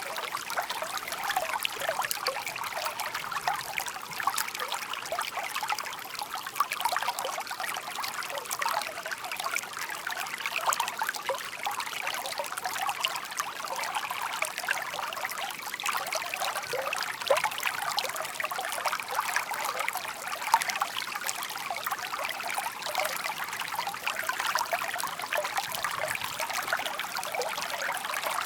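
A shallow stream babbling and trickling steadily, a continuous mix of many small splashes and gurgles of water flowing over stones.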